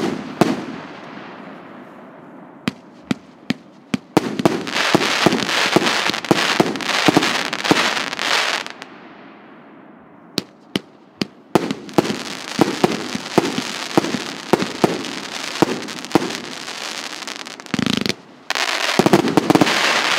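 A 100-shot, 1.5-inch consumer fireworks cake (РС9530 "КПСС") firing: quick runs of sharp launch reports, with the stars bursting into long stretches of dense crackling. There is a thinner stretch of scattered pops about halfway through, and a final heavy spell of crackle near the end.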